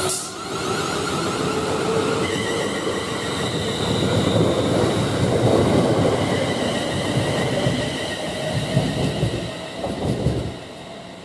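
Siemens Class 350 Desiro electric multiple unit passing close by: traction-motor whine, rising early on and then held as steady high tones, over the rumble of wheels on rail. It is loudest in the middle and drops away about ten and a half seconds in.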